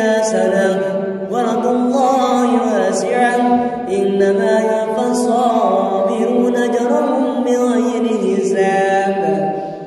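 A young man reciting the Quran in melodic tilawah style, drawing the words out into long held notes that bend up and down in pitch; the phrase fades away near the end.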